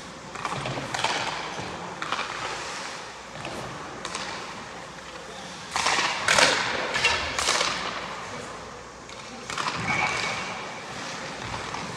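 Hockey skate blades scraping on rink ice in short strokes, the loudest cluster about halfway through.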